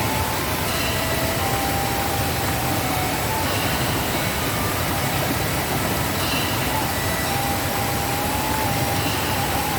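Waterfall in heavy rainy-season flow: a steady, loud rushing of falling water. Faint high tones come and go every couple of seconds above the rush.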